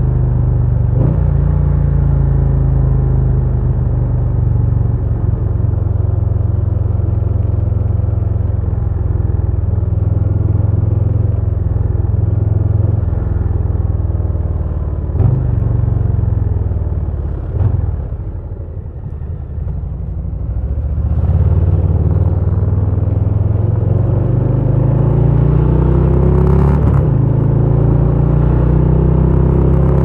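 2022 Harley-Davidson Low Rider S's Milwaukee-Eight 117 V-twin running under way with a deep, steady exhaust rumble. The engine eases off and quietens about two-thirds of the way through, then climbs in pitch as the bike accelerates again.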